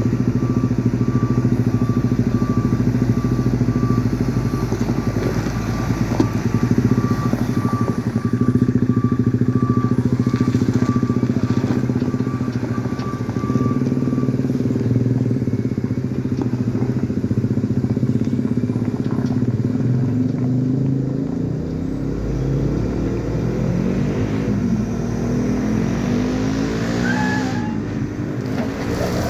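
Heavy vehicle's diesel engine running steadily, with a rapid repeated beep over the first half. In the second half the engine pitch rises and falls as it is worked.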